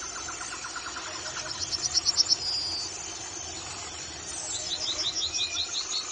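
Yellowhammer singing: two phrases, each a quick run of repeated high notes that grows louder. The first ends in a longer drawn-out note about two and a half seconds in, and the second starts past the middle. A fainter, lower-pitched run of repeated notes plays in the first second or so.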